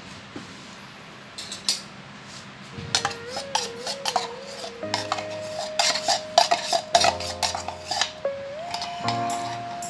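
Clinking and scraping of kitchenware against a glass mixing bowl as condensed milk is poured and scraped out of its container, in a quick run of sharp clicks that starts about three seconds in and is busiest in the middle. A light background melody plays underneath.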